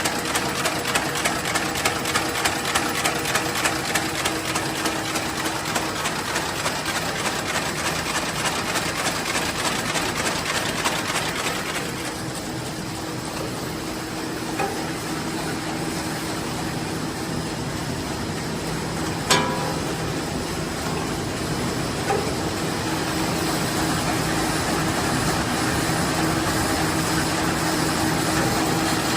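ZONO ZNEP fully automatic paper bag machine running at high production speed: a steady mechanical clatter with a regular knock about twice a second at first. The sound thins out about twelve seconds in, and a sharp single click comes a few seconds later.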